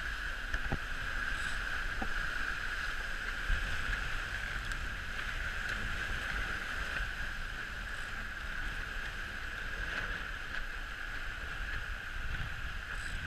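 Water rushing and spraying past the hulls of a Dragonfly trimaran sailing fast in strong wind, a steady hiss, with wind buffeting the microphone as a low rumble.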